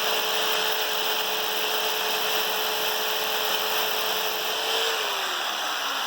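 Corded Harbor Freight jigsaw with a coarse 6-tooth-per-inch wood blade running at full speed and sawing through wood with a steady, loud rattle. Near the end the motor's pitch drops as the saw winds down.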